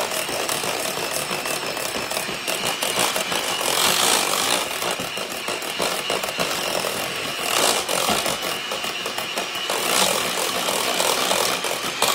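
Handheld electric mixer running, its beaters whipping cream cheese frosting in a stainless steel bowl. The motor hums steadily under a rattling clatter from the spinning beaters.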